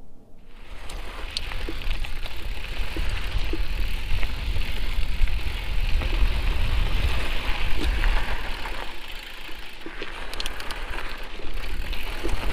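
Mountain bike rolling downhill on a rocky dirt trail: tyres crunching over the ground and the bike rattling, with scattered clicks of small stones, under a heavy low rumble of wind on the microphone. It all starts about half a second in.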